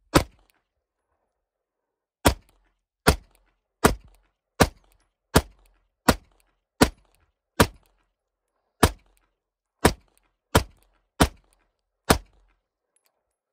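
PSA Dagger Glock-clone pistol firing fourteen shots: one, then after about a two-second pause a steady string of thirteen, roughly one shot a second, each with a short echoing tail. The pistol fires every round, now running reliably with its broken firing pin replaced.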